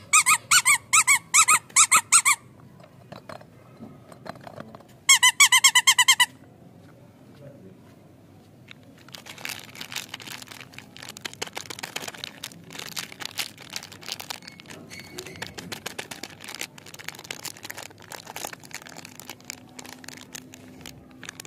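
Squeaky rubber toy squeezed in quick runs of squeaks, about ten in the first two seconds and another short burst about five seconds in. From about nine seconds in, a plastic candy-bar wrapper crinkles and crackles as it is peeled open.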